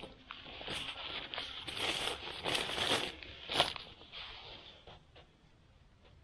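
Thin plastic bag rustling and crinkling as it is handled and put down, with a few sharp crackles between about two and four seconds in, then fading to quiet.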